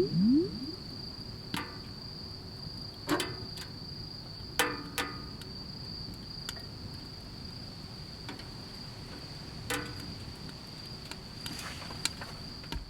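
Crickets trilling steadily on one high pitch, with about nine sharp pops scattered through it every second or two.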